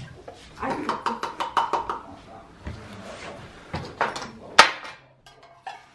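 A metal food can knocking as it is tapped and handled while cream is emptied into a blender jar, with several sharp knocks and the sharpest about four and a half seconds in.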